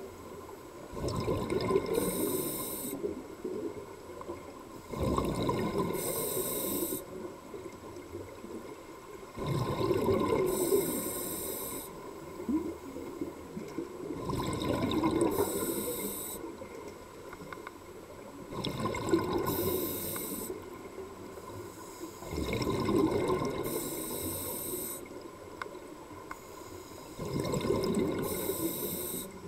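A scuba diver breathing through a demand regulator underwater, about seven slow breaths: each a hiss through the regulator and a burble of exhaled bubbles, one roughly every four seconds.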